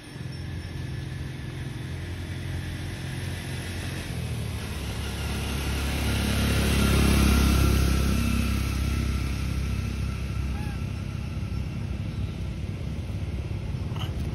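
A motor vehicle passing by: a low rumble that builds to its loudest about seven seconds in, then fades away.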